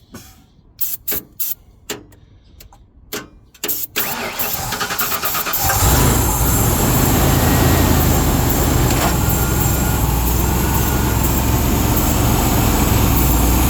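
Several short sharp noises, then the 5.8-litre V8 of a 1996 Ford F250 cranking on the starter about four seconds in and catching about two seconds later, then running steadily. It fires on starting fluid sprayed into the intake, because a bad fuel pump keeps it from running on its own.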